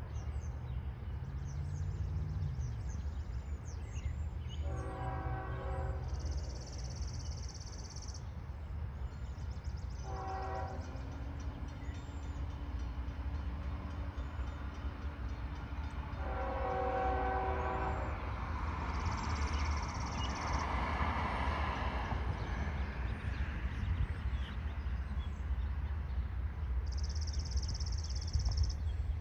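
Freight locomotive air horn on a CSX loaded ore train giving three short honks a few seconds apart, the last a little longer, as the train comes on. A steady low rumble runs underneath.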